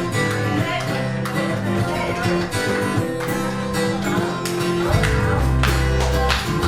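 Band playing an instrumental passage with guitar and drums; a heavy bass line comes in about five seconds in.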